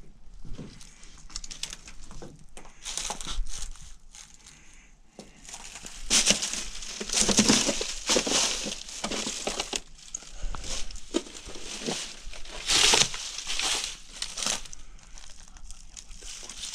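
Irregular crunching and crinkling, with louder stretches in the middle and again a few seconds before the end.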